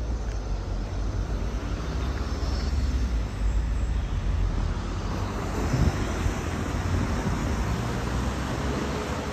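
Steady low rumble of road traffic mixed with a freight train moving away down the line, with a car driving past near the end.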